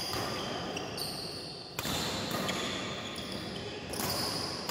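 Badminton doubles rally: rackets striking the shuttlecock about once a second, with shoes squeaking on the court between shots.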